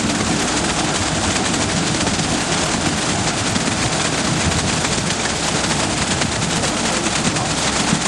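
Diesel engine of a self-loading concrete mixer running steadily with a fast, even clatter while the drum discharges concrete down its chute.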